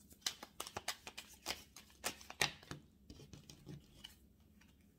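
A deck of oracle cards being shuffled and handled in the hand: a quick, irregular run of crisp card snaps and clicks over the first three seconds, then a few softer ones.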